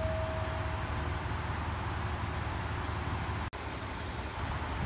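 KiHa 200 series diesel railcar idling at a standstill: a steady low engine rumble under a hiss. A steady high tone fades out about a second in, and the sound cuts out for a moment about three and a half seconds in.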